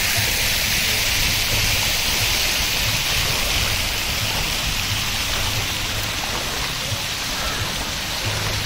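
Steady rushing hiss of running water in a shallow outdoor pool, with light splashing from a child wading through it.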